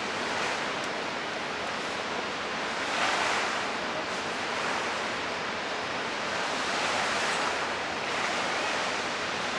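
The Rhine Falls' water rushing in a steady, even wash of noise, swelling a little about three seconds in.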